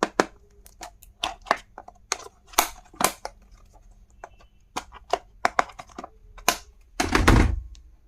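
Irregular clicks and light knocks of small plastic stationery items being handled, with a louder, longer rustling burst about seven seconds in.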